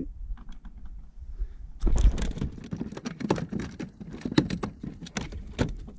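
Handling noise from a fish being held and worked over on a plastic kayak: a quick run of scraping, rustling and knocking that starts about two seconds in, with a dull thump at its start.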